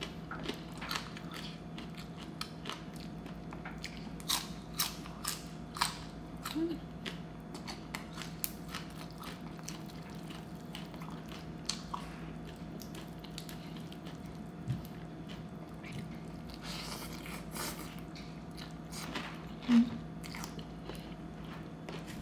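Close-miked eating: chewing with repeated crisp crunches and wet mouth clicks and smacks, irregular throughout, as rice noodles, raw greens and crisp pork rinds are eaten. A short low hum sounds near the end.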